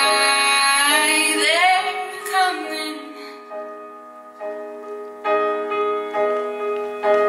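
Dance-track music with a female voice singing: a long held note, then a sliding phrase. The music thins to a quiet sustained passage and then builds back with repeated sustained chords.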